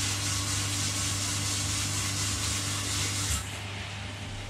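Koi pond filtration equipment running: a steady electrical pump hum under an even hiss of moving water and air. About three and a half seconds in, the hiss and a higher hum drop away and the sound gets quieter, leaving the low hum.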